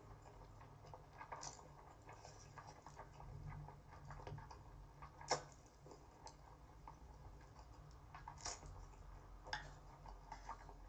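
Faint close-up eating sounds of spicy cold noodles (bibim-naengmyeon) being slurped and chewed, with scattered small wet clicks and smacks, a sharper one about five seconds in.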